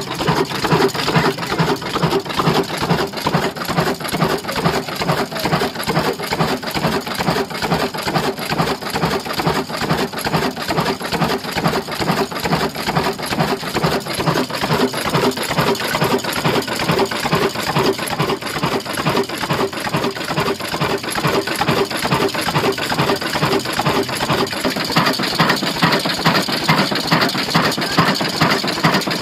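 Old stationary engine with large flywheels running steadily, with a rapid, even clattering beat.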